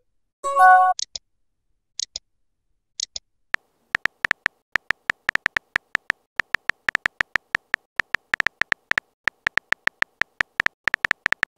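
Phone keyboard typing sound effects from a chat animation: a short electronic chime about half a second in, then from about three and a half seconds in a rapid, uneven run of sharp key clicks as a message is typed out.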